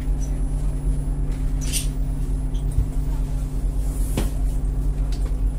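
Steady low hum of a double-decker passenger railway carriage's air conditioning and on-board equipment. Over it come a short hiss about two seconds in and a sharp click about four seconds in, from people moving along the corridor with their luggage.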